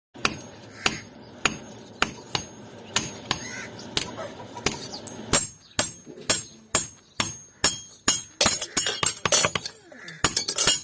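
Hand hammer striking steel on an anvil while forging a cleaver blade, each blow ringing metallically. The blows come about twice a second at first, then quicken to about three a second from around halfway.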